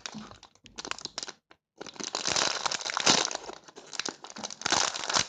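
Plastic packaging crinkling and rustling as it is handled, in short bursts at first, with a brief pause, then steadily.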